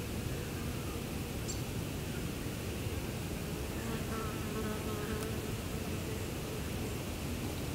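Flying insect buzzing, coming and going, over a steady background hiss.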